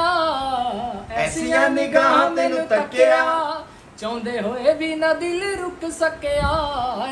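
A man singing a Punjabi love song without accompaniment, holding long, wavering notes in phrases, with a brief pause about four seconds in.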